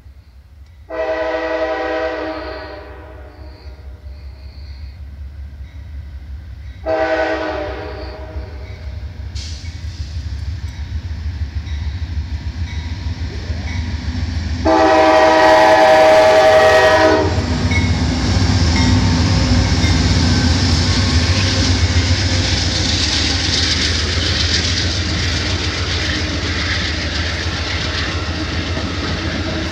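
Amtrak Silver Meteor's locomotive horn sounds three blasts as the passenger train approaches the crossing, the third the longest and loudest. The train then rushes past with a steady roar of wheels on rail. Under it all, a freight train rumbles by on the adjacent track.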